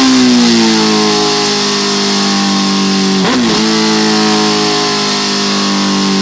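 Sport bike engine running on a chassis dyno, its rear wheel turning the roller; the revs slide down over the first couple of seconds, waver briefly about three seconds in, then hold steady.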